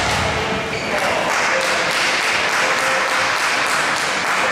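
Spectators applauding, with crowd chatter, in a large reverberant sports hall; the noise swells suddenly and holds at a steady level.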